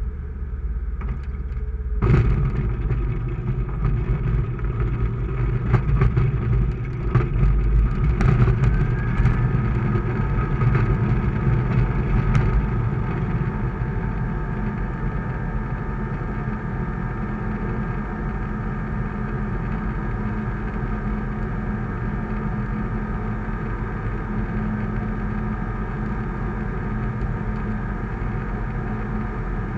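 The Sling 2's Rotax 912 flat-four engine and propeller, heard inside the cockpit, come up sharply to full takeoff power about two seconds in. Knocks and rattles from the ground roll run until about twelve seconds in, as the aircraft lifts off. After that there is a steady climb-power drone.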